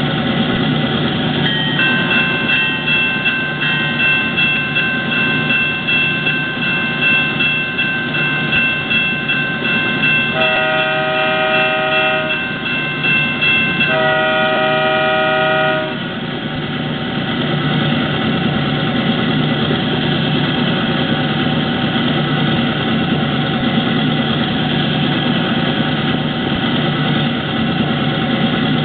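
Diesel locomotive sound effects from an HO-scale EMD GP9M model: an idling diesel prime mover with a steady rhythmic chug, overlaid by two long multi-note horn blasts about ten and fourteen seconds in.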